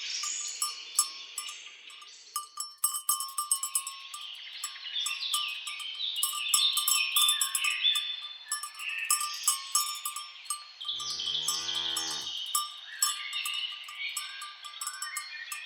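Birds chirping busily with quick falling notes, over the clinking of cowbells on grazing cattle. About eleven seconds in, a cow moos once, lasting a little over a second.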